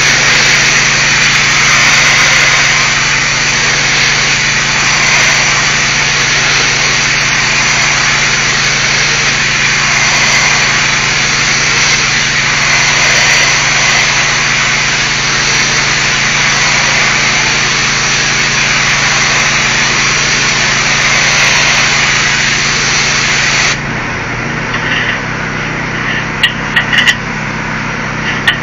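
High-pressure washer spraying a brick wall, a steady loud hiss over the hum of a running engine. About twenty-four seconds in the spray cuts off suddenly, leaving the engine running, and a few sharp knocks follow near the end.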